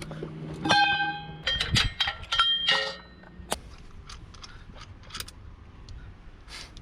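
Metal parts and tools clanking together, several ringing strikes in the first three seconds or so, then a few faint clicks.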